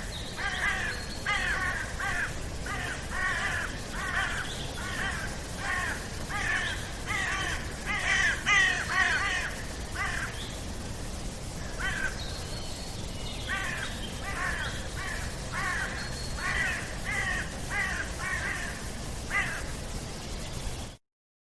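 Birds calling over and over in quick series of short calls, with a lull midway, over a steady low background hiss; the sound cuts off abruptly near the end.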